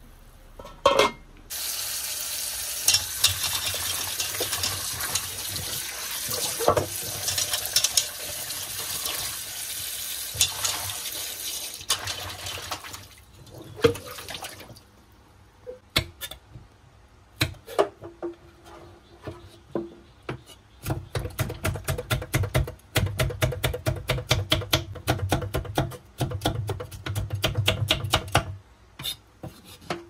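A steady rush of water for about ten seconds. Then a knife chops chilies on a thick wooden chopping block: a few scattered cuts, then a fast run of even chops, several a second, each with a dull knock from the wood, near the end.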